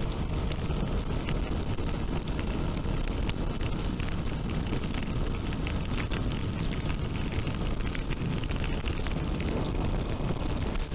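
Wind rushing over the microphone on a moving motorcycle, a steady low rush with no let-up.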